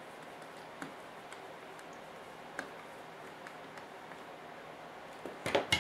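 Faint, scattered ticks of a hand screwdriver turning a small screw into a model truck's chassis, then a short cluster of louder clicks and clatter near the end as the parts are handled.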